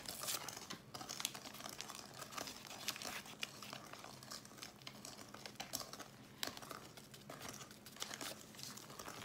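A plastic baking-powder sachet crinkling as it is handled and emptied over a steel mixing bowl, in a run of short irregular crackles, with a wire whisk stirring flour into the chocolate batter.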